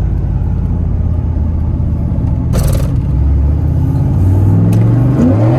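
V8 engine of a Pontiac Fiero running under way, heard from inside the car, its pitch climbing as it revs up about four seconds in. A short hiss sounds about halfway through.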